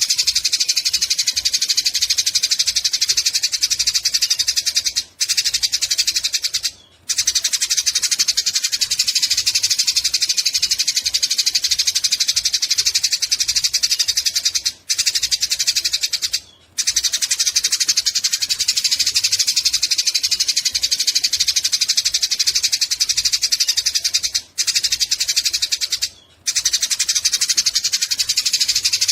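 Eurasian tree sparrows fighting, chattering in a dense, unbroken stream of rapid high chirps. The stream stops for a moment a few times, in short pairs of gaps.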